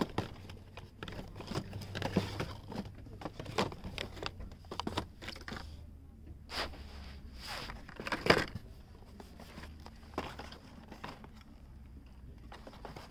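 Plastic blister packs and cardboard toy-car boxes rustling, crinkling and clicking against each other as they are rummaged through and shifted by hand, in irregular handling noises with the loudest clatter about eight seconds in.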